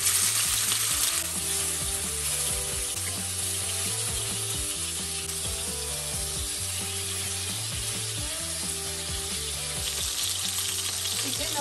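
Chicken thigh slices and shrimp sizzling in hot vegetable oil in a non-stick wok: a steady frying hiss that eases a little about a second in.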